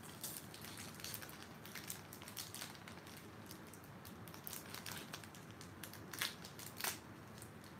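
A foil booster-pack wrapper being torn open and crinkled by hand: a run of small crackles and rustles, with two louder crackles near the end.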